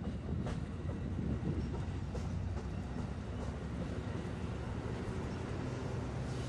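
Amtrak California bilevel passenger cars rolling past: a steady low rumble of steel wheels on rail with a few sharp clicks. A low diesel locomotive hum grows louder near the end.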